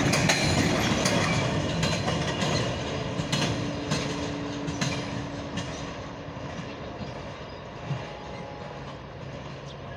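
Tail end of a freight train of covered sliding-wall wagons rolling past and away, wheels clicking over rail joints. The rumble fades steadily as the last wagon recedes, and the clicks thin out after about five seconds.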